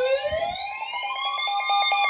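Emergency alert tones: an electronic siren wails slowly up and down over a steady high weather-radio alert tone. From about half a second in, a rapid beeping alarm joins them at about four beeps a second.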